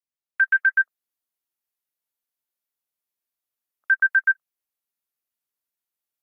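iPhone ringtone: four quick electronic beeps at one high pitch, repeated as a second group of four about three and a half seconds later.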